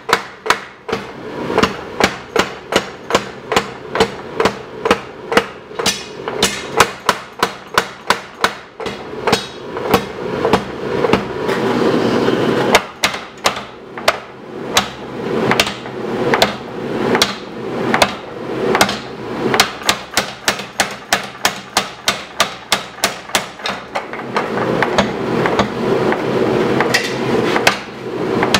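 A 50 lb Little Giant mechanical power hammer striking red-hot knife steel at about three blows a second. About halfway through, and again over the last few seconds, the blows run together into a continuous clatter.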